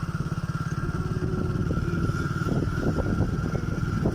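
Motorcycle engine running steadily at road speed, with a fast, even pulsing beat and some brief rattly noise in the second half.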